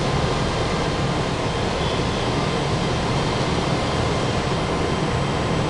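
Steady whir of a standing FS Class E.464 electric locomotive, its cooling fans and auxiliary equipment running at rest.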